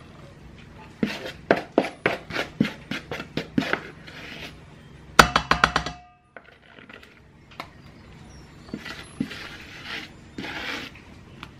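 Wooden spoon knocking and scraping thick cake batter out of a mixing bowl into a round metal cake tin. About ten sharp knocks come in the first few seconds, then a fast rattle of taps with a ringing tone about five seconds in, then a few softer knocks and scrapes.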